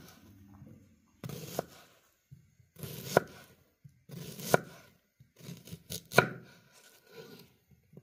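Large kitchen knife dicing a white onion on a wooden cutting board: each stroke is a crisp cut through the onion ending in a sharp knock of the blade on the board. Five strong strokes come about every one and a half seconds, with a few lighter cuts between them.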